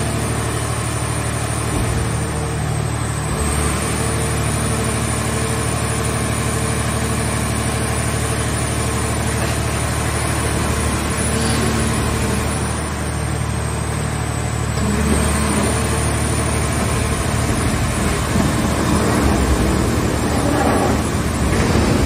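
Hydraulic power unit of a mobile car-shell baler running steadily with a low hum, while its hydraulic cylinders fold the press lids down over the scrap in the chamber. The sound grows louder and rougher over the last third.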